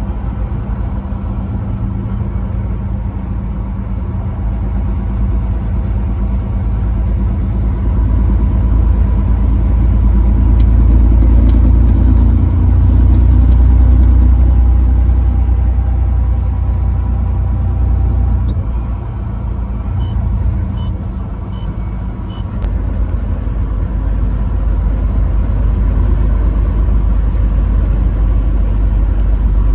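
Truck on the road: steady engine and road rumble that swells louder near the middle and eases off about two-thirds through, with a short run of light, evenly spaced ticks around that dip.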